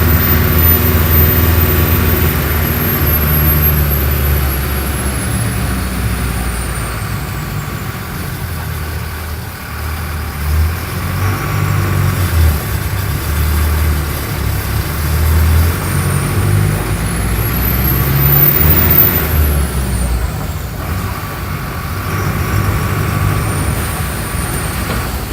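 Mercedes-Benz OF-1417 bus's six-cylinder diesel engine running and pulling, its loudness swelling and easing as the bus drives. A high whine falls away over the first several seconds, then rises and falls again about three quarters of the way in.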